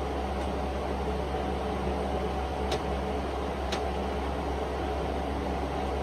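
Steady background hum and hiss, like a fan or air conditioner running, with two faint ticks about a second apart midway.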